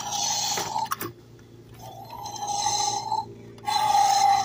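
Electronic dinosaur roars from the Fisher-Price Imaginext Spinosaurus toy's built-in speaker, switched on: three bursts about a second long each, with short pauses between them.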